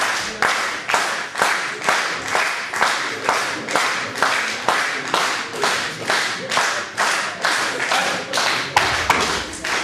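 Audience clapping in unison, a steady beat of about two claps a second.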